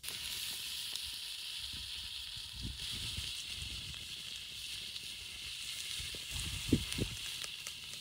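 Chopped meat and vegetables sizzling steadily on a flat steel griddle tray over a wood fire, with a few soft low pops and one louder short thump about two-thirds of the way through.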